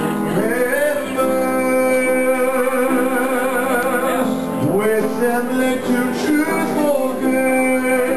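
A person singing a slow melody of long held notes with vibrato, sliding up into each phrase, over instrumental accompaniment.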